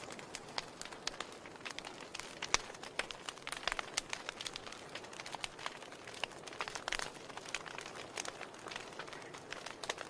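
Wood fire burning in a fireplace, crackling with irregular sharp pops over a soft steady hiss.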